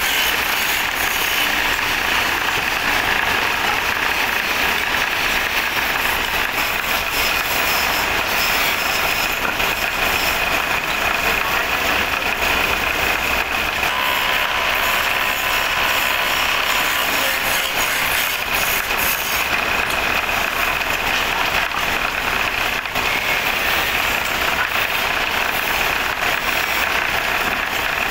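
A powered wood lathe runs steadily while a hand turning tool cuts a spinning wooden handle blank, giving a continuous scraping hiss over the machine's running noise.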